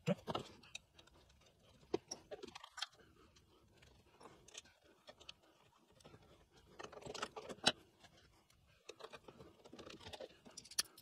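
Faint scattered clicks, taps and small rattles of hand reassembly work on a spindle sander: a screwdriver and parts knocking against the plastic housing, busier about seven seconds in and again near the end.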